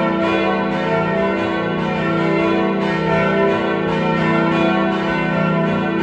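Full peal of the four church bells of a town church, tuned e, f sharp, a and b, swinging and ringing together. The strokes overlap into a steady, continuous ringing at an even level.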